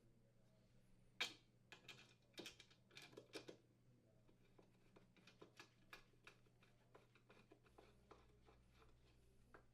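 Faint clicks and taps of a screwdriver turning in screws to fasten the new oven door handle. There is a sharper click about a second in, a quick cluster of taps soon after, then lighter ticks.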